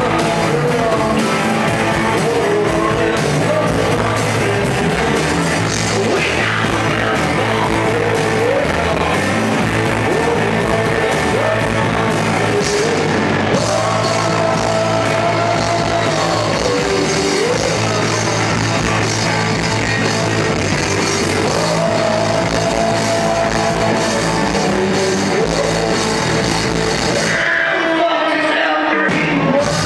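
Live rock band playing: a male lead singer holds long sung notes over electric guitars, bass and drums. Near the end the drums and bass drop out for a moment, leaving the voice, before the full band comes back in.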